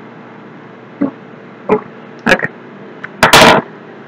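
Handling noises from items being taken out of a product box: a few short knocks and clicks, then a louder, longer handling noise about three seconds in.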